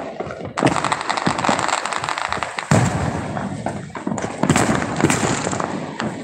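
Fireworks going off: a dense run of rapid crackling pops with several louder bangs mixed in.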